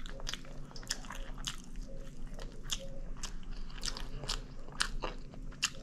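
A person eating close to the microphone: chewing and biting, with many short, irregularly spaced mouth clicks and smacks.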